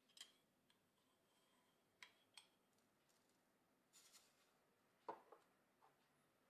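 Faint patter of sesame seeds poured from a small cup into a dry nonstick frying pan, a short rustle about four seconds in, among a few faint clicks and knocks of the cup being handled; the sharpest knock comes about five seconds in.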